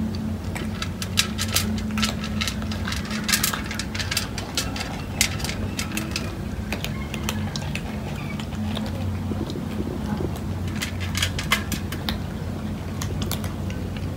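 Several cats crunching dry kibble from a metal tray, with irregular sharp clicks of kibble and teeth against the metal. A steady low hum runs underneath.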